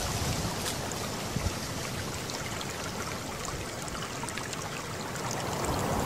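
Steady rushing sound of flowing water, with a brief click about one and a half seconds in.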